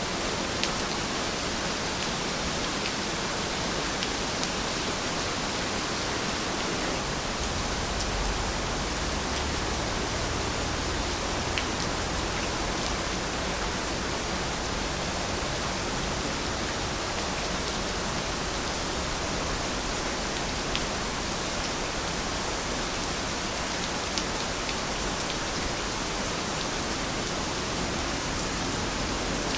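Steady rain falling, an even hiss with scattered sharper drop ticks. A faint low rumble rises underneath about a quarter of the way in.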